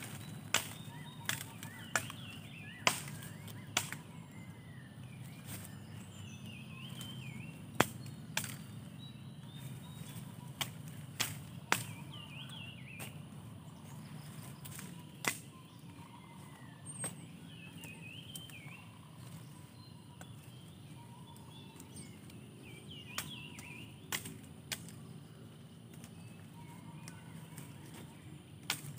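Machete chopping woody stems and vines in undergrowth: sharp single strokes, several in quick succession in the first few seconds and again about eight to twelve seconds in, then only now and then. Birds chirp in the background.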